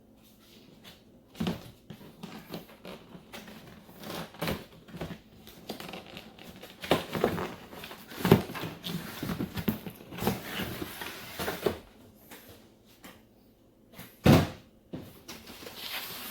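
Cardboard box and packaging being opened and handled: irregular rustling, scraping and knocking, with the loudest knocks about eight seconds in and again near the end.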